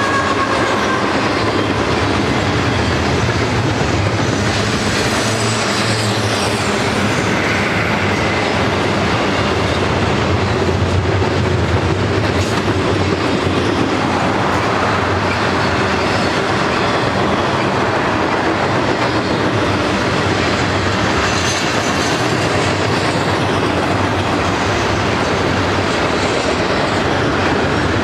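Double-stack intermodal train's container-laden well cars rolling past: a steady rumble and clatter of steel wheels on rail, with a faint wheel squeal near the start.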